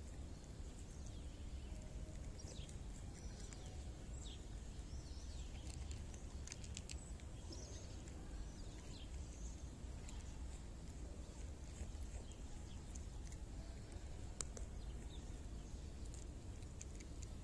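Steady low outdoor rumble with scattered short, high bird chirps and a few faint clicks.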